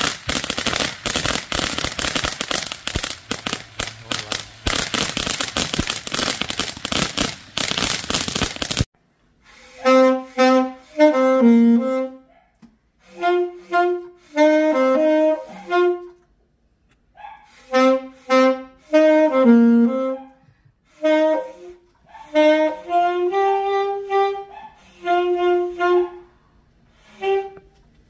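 Firecrackers going off in a dense, rapid crackle for about nine seconds, cut off suddenly. After that, a wind-instrument melody plays in short phrases of held notes with pauses between them.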